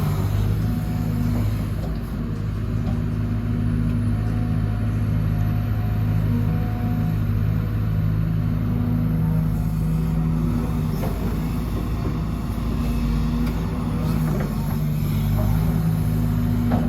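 Sumitomo SH210 hydraulic excavator's diesel engine running steadily under work, a constant low drone with a fainter higher hydraulic-type whine coming and going.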